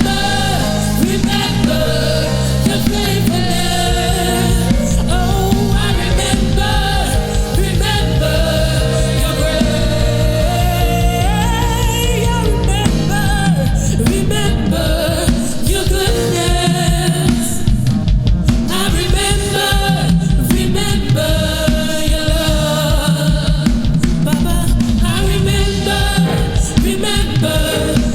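Gospel song with lead singing over a full band accompaniment, with a steady beat.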